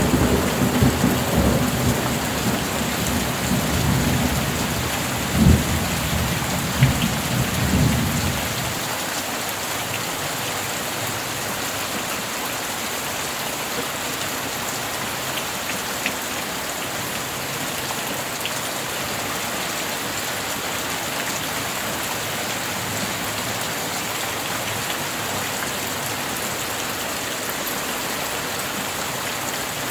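Heavy rain falling steadily, with a rolling rumble of thunder that includes two sharper claps and dies away about eight seconds in, leaving only the rain.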